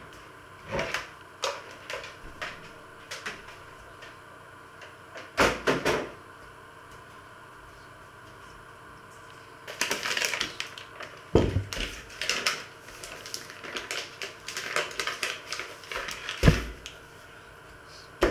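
Kitchen handling noises: clicks and knocks as utensils are moved, a few thumps of things set down on a wooden worktop (the loudest near the end), and a stretch of rustling as flour is shaken out onto the board.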